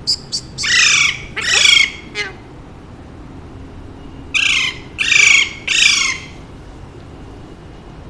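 Alexandrine parakeet squawking loudly in two bouts: two short calls at the start and two long squawks about a second in, then three squawks in a row around the middle.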